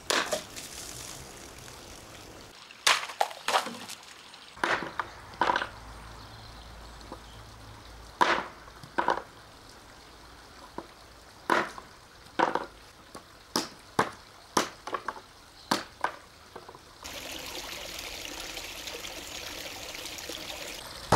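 A run of a dozen or more sharp, separate chops and knocks from a hand-forged bearded axe made from leaf spring, hacking through plastic bottles and wood, with water splashing from the cut bottles. Near the end the strikes stop and a steady hiss takes over.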